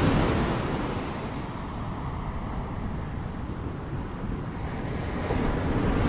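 Ocean surf washing onto a shore: a wave's wash at the start fades into a lull, and the next wave swells in near the end.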